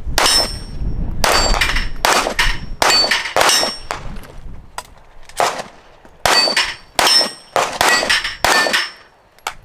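Rapid gunfire at steel plate targets, a sharp clang with a short high ring on many of the hits, about two or three a second with a short lull midway.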